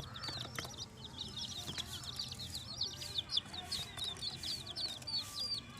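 Baby chicks peeping: a continuous run of short, high-pitched cheeps, several a second.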